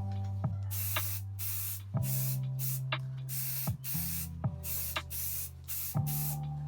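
Paint being sprayed in a series of short hissing bursts, each a second or less, with brief gaps between, over background music.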